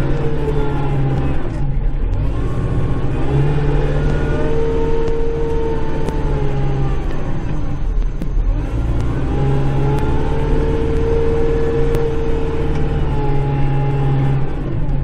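Kubota Grand L5740 tractor's diesel engine, heard from inside the cab, working while plowing snow. It revs up and holds, then eases off sharply about two seconds and eight seconds in, twice over.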